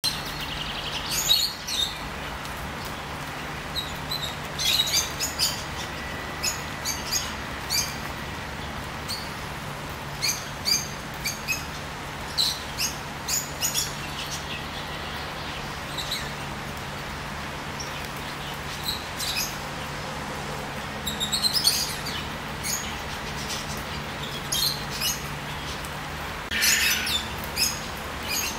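Songbirds singing hidden in the trees, many short chirps and whistles coming one after another, over a steady hiss of rain on the foliage.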